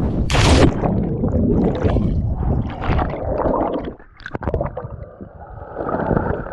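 A person plunging feet-first into deep water from a cliff: a sharp splash on entry, then low rumbling and bubbling heard from underwater. Near the end comes a second stretch of underwater bubbling.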